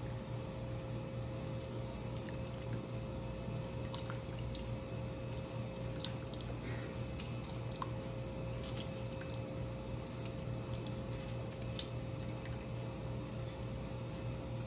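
Small drips and faint pops of liquid falling into a pan of dal as a lemon is squeezed over it, scattered irregularly over a steady low hum.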